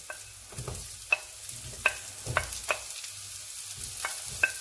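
Garlic sizzling in oil in a frying pan as diced onion is scraped into it off a plate with a wooden spatula, with about eight sharp knocks, some ringing briefly, as the spatula strikes the plate and pan.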